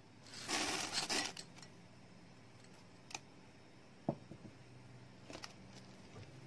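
Chocolate chips poured into muffin batter in a glass mixing bowl, a burst of pattering lasting about a second. Just after four seconds in, a wire whisk knocks sharply against the glass bowl, followed by a few soft strokes of the whisk stirring the batter.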